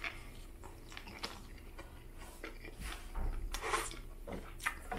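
Close-up chewing of a toasted Subway Italian BMT sub sandwich: soft, wet mouth clicks and smacks, faint and irregular. About three and a half seconds in there is a brief, slightly louder rubbing as a cloth napkin wipes across the mouth.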